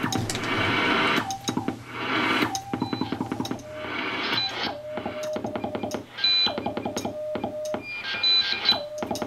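Morse code (CW) being sent by hand: short on-off tones from the keyed homebrew 6AQ5 QRP transmitter heard through the receiver, with sharp clicks from the key and bursts of receiver hiss cutting in and out between groups of characters.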